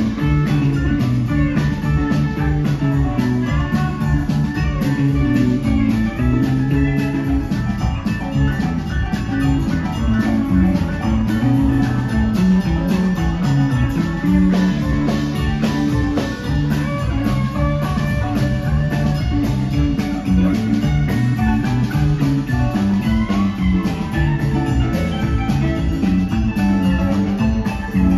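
Live rock band playing a guitar-led passage, with electric guitars over bass, drum kit and keyboard keeping a steady beat.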